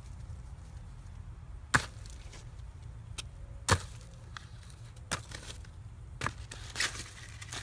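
Fruit and peel scraps dropped into a plastic bucket lined with shredded newspaper, landing with about five sharp thuds a second or two apart, with papery rustling near the end.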